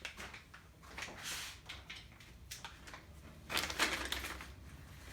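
Handling noises in a small workshop: rustling about a second in, then a louder cluster of knocks and clatter a little past halfway, as objects are picked up and set down.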